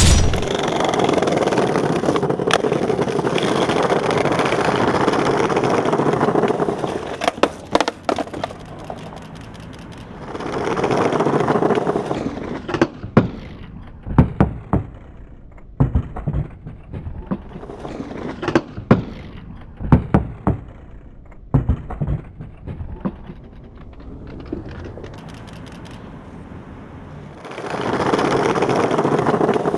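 Skateboard wheels rolling over brick pavers with a steady rumble, then a run of sharp cracks and clacks from the board being popped, slapping down and clattering on concrete as the skater tries a stair handrail and slams. Another rolling approach starts near the end.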